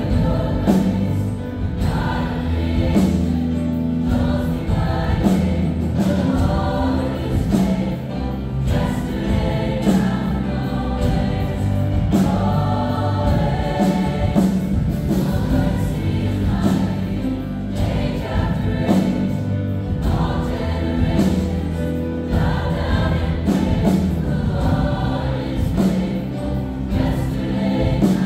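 A gospel choir singing a worship song with band accompaniment, steady bass and drums.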